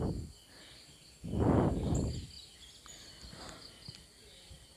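Faint background of insects, with a steady high chirring running underneath. A soft rush of noise lasting about a second comes a little over a second in.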